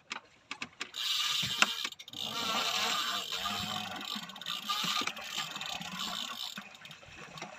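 Fishing reel working under heavy load from a hooked stingray: a few clicks, then a sustained mechanical whir from about a second in, with a short break near two seconds.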